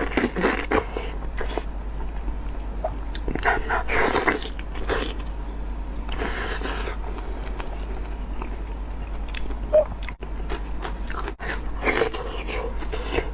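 Close-up mouth sounds of a person biting into and chewing chunks of meat coated in chili-oil sauce, with wet smacking. It comes in bursts: at the start, around four seconds, around six to seven seconds and again near twelve seconds.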